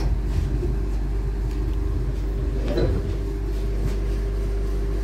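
Inside a light-rail train car: a steady low rumble from the running gear with a constant hum, heard as the train pulls into a station, with a few faint clicks.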